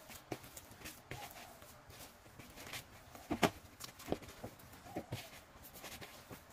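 Hand-kneading a sticky, still shaggy bread dough in a plastic bowl, early in kneading while the flour is still being worked in. Irregular soft slaps and squelches sound, with a few sharper knocks, the loudest a little past three seconds in.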